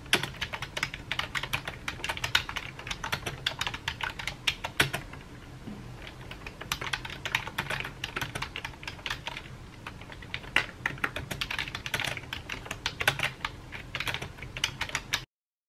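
Computer keyboard typing: rapid runs of key clicks, thinning briefly about five seconds in, then cutting off suddenly near the end.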